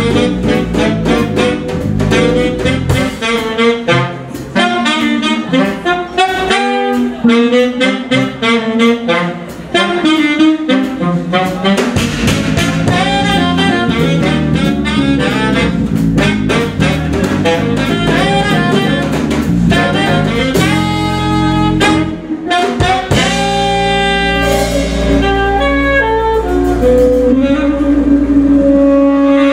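Live jazz quintet playing: saxophone lines in fast runs over drum kit, bass and guitar. From about 22 seconds in the horns move to long held notes sounding together.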